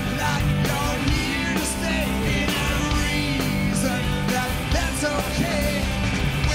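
Rock band playing live: a male singer sings loudly, close on the microphone, over electric guitars, bass and drums.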